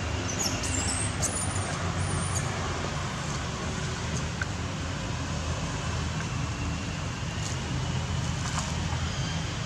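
Steady low outdoor rumble, much like distant traffic, with a few faint high chirps in the first couple of seconds.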